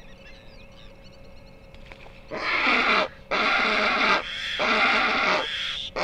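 Greater flamingos calling: four loud, harsh calls of under a second each, coming about a second apart from a little past the middle. Small birds chirp faintly before them.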